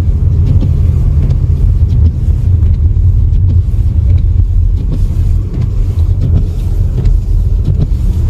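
A motor vehicle driving: a loud, steady low rumble.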